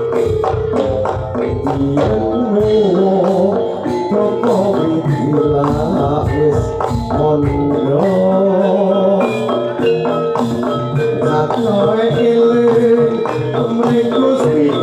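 Live jaranan music: a Javanese percussion ensemble with hand drums and struck metal percussion playing a steady, dense rhythm, under held and wavering melodic lines.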